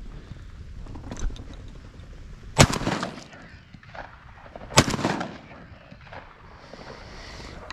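Two shotgun shots about two seconds apart, each trailing off in an echo.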